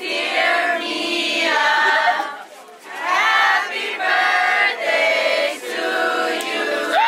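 A group of people singing together in sung phrases, with a short break about two and a half seconds in.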